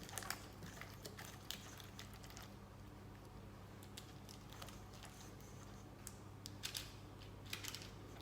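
Scattered light clicks and taps of battered cauliflower florets being handled on a paper-lined baking tray, with a small cluster of taps near the end, over a steady low hum.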